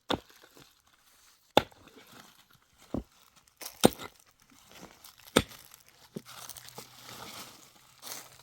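A series of five sharp knocks or chops, about a second to a second and a half apart, with faint rustling between them.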